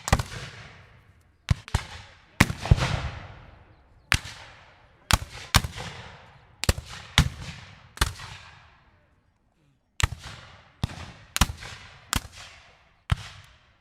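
Rifled muskets firing at random: about fifteen single shots at irregular intervals, a few in quick pairs, each with a long echoing tail.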